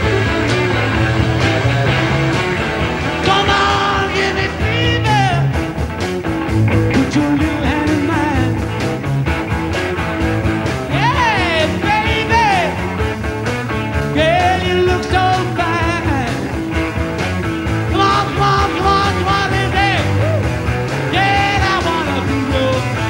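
Rock and roll song: a man singing over electric guitars and a steady beat.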